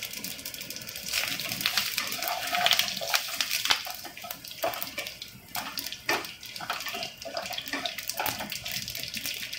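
Tempering (tadka) in a wok of hot oil: mustard seeds, cumin and dried red chillies sizzling with many sharp crackling pops, getting louder about a second in as fresh curry leaves go into the oil. A wooden spatula stirs them.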